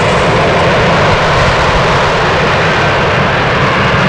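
F-35B Lightning II hovering in short-takeoff/vertical-landing mode, its Pratt & Whitney F135 jet engine and shaft-driven lift fan running at hover thrust: a loud, steady jet noise with no change in pitch.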